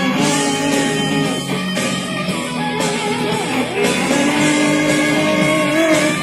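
Rock song in an instrumental passage with electric guitar playing sustained notes, some of them sliding in pitch, and no singing.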